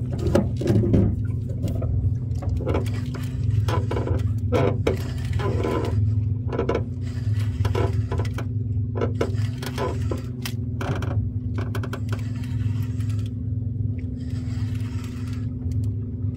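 Small fishing boat's motor running steadily at an even pitch, with scattered knocks and rattles on top.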